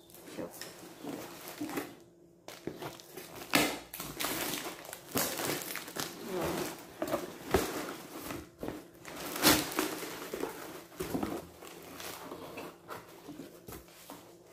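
Plastic wrap and packing tape torn and crinkled as a cardboard parcel is opened, then crumpled kraft packing paper rustling. Irregular crackling and tearing, with louder rips a few seconds in and again about two-thirds of the way through.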